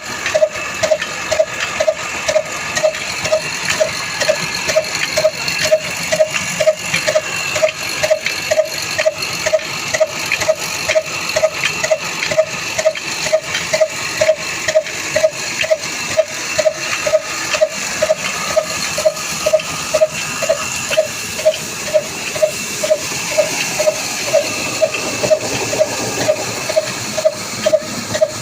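Old stationary diesel engine running a flour mill at a steady speed, with an even beat about twice a second and a short ringing note on each beat, over the steady hiss and rumble of the mill.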